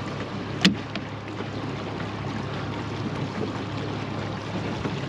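Boat motor running steadily while trolling, a low even hum with wind and water noise over it. A single sharp knock comes a little over half a second in.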